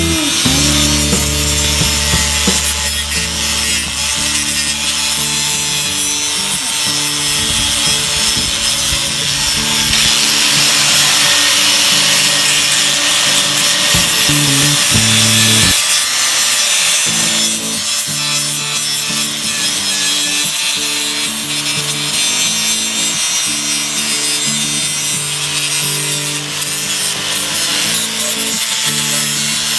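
Steady abrasive sanding of body filler and fiberglass over a rust repair on a car's rocker panel, a continuous scratchy rasp. Background music plays under it.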